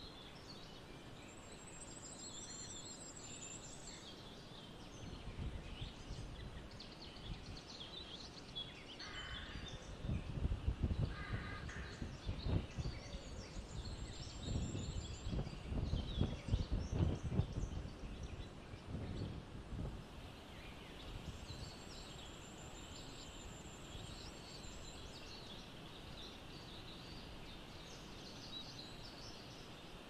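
Outdoor ambience with small wild songbirds giving short high trills a few times and scattered chirps, over a steady hiss. Wind gusts on the microphone make a low rumble from about ten to eighteen seconds in.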